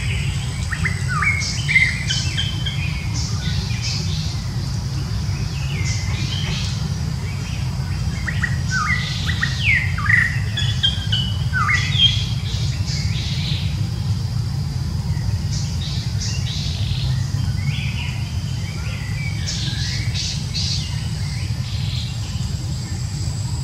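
Birds chirping in three short bouts of quick, mostly falling notes, over a steady low rumble and a faint steady high whine.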